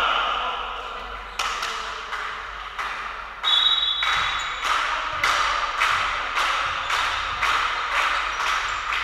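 Sharp rhythmic claps or impacts, about two a second, echoing in a large sports hall, with a brief high steady tone about three and a half seconds in.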